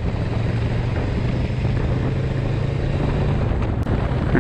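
Honda Rebel 500's parallel-twin engine running at a steady cruise, a low even hum, with wind rushing over the microphone.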